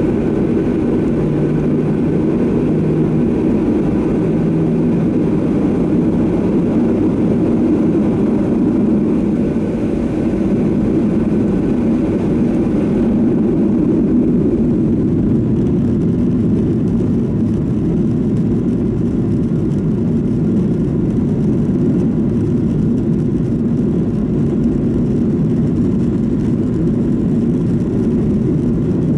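Boeing 737-800's CFM56-7B jet engines at taxi power, heard from inside the cabin as a steady, deep hum. The higher hiss thins out about halfway through.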